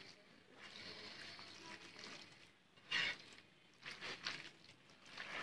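Wet squelching of a hand kneading chunks of bone-in beef with spice paste, oil and chopped onions in a pan, in irregular strokes, the loudest about three seconds in.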